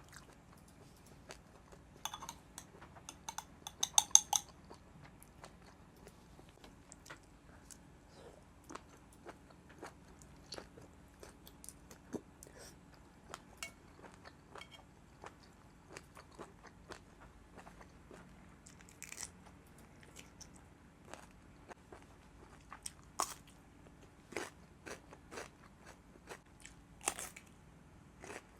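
Close-miked chewing and biting of boiled octopus: soft wet clicks and crunches throughout, with a louder run of sharp clicks about two to four seconds in.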